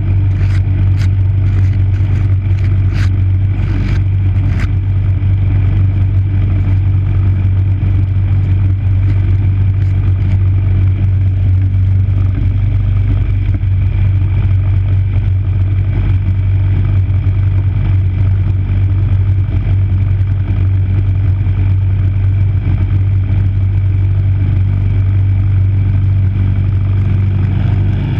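MTD snowblower's 5 hp single-cylinder engine running steadily while clearing snow, with a few sharp clicks in the first few seconds.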